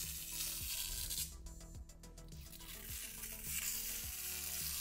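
Clear protective plastic film being peeled off an LED matrix panel module, a crackling hiss in two stretches: about the first second, then again from about three seconds in.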